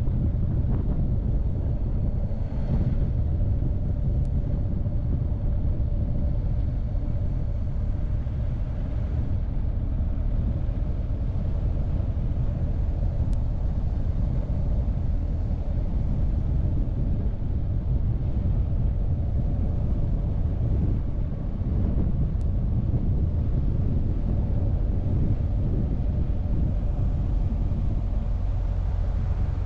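BMW R1250GS boxer-twin engine running under way at a steady pace, with wind rushing over the microphone; a steady low rumble.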